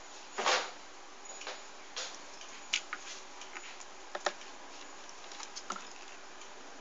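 Scattered light clicks and small knocks with one brief rustle about half a second in: handling and movement noises around a chest of drawers with a cat inside a drawer.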